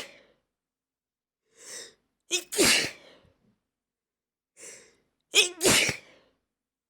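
A person sneezing twice, about three seconds apart, each sneeze preceded by a short in-breath, with the tail of an earlier sneeze at the very start.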